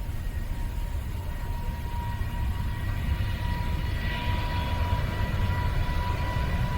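Jet airliner engines: a low rumble with a steady high whine, growing a little louder midway through as the aircraft draws nearer.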